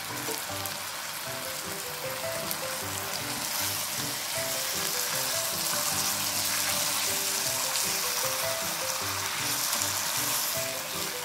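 Teriyaki chicken and umeshu plums sizzling in a frying pan as the sauce cooks down, the sizzle growing louder a few seconds in and easing near the end. Soft background music plays underneath.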